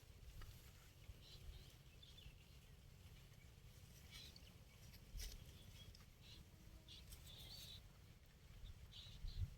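Quiet outdoor ambience with a steady low rumble and scattered short bird chirps.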